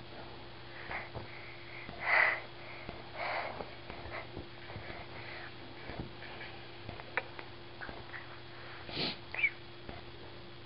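A man breathing hard through his nose while holding a plank: a few short, sharp breaths, the loudest about two seconds in and another near the end, among small clicks.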